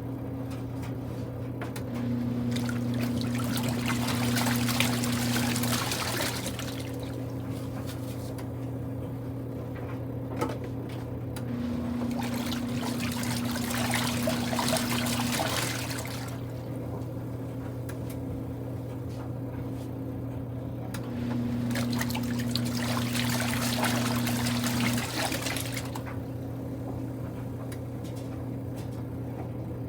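Kuppet portable washing machine agitating a load on its gentle cycle: the wash motor runs in three bursts of about four seconds, churning and sloshing the water, with pauses of about five seconds between. A steady low hum runs underneath.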